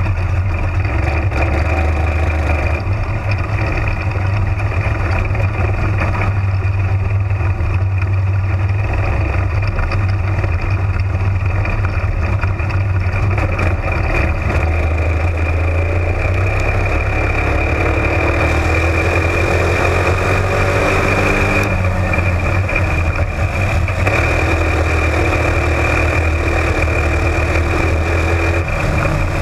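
Onboard sound of a Florida Spec Modified (sling shot) race car's engine running at racing speed, loud and steady, with its pitch rising and falling about two-thirds of the way through as the car works through the turns.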